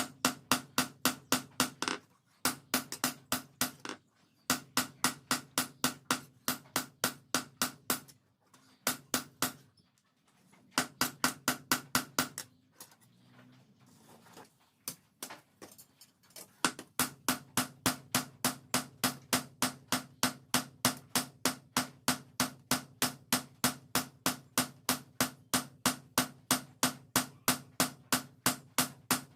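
Hammer blows on steel over an anvil, forging a cleaver blade from a car leaf spring: rapid, evenly spaced ringing strikes, about four a second, in runs with short pauses and a longer break about halfway through.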